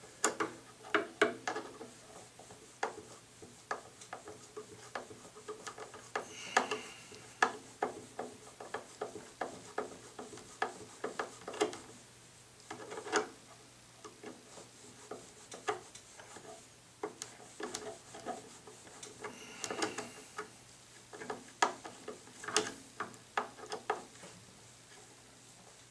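Flat-blade screwdriver turning screws out of a model airplane's plastic engine mounts: irregular small clicks and ticks as the blade works in the screw heads and the hand regrips the handle.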